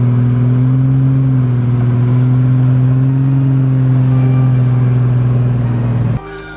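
Car engine holding steady revs, a loud low drone with only slight rises in pitch, which cuts off suddenly about six seconds in.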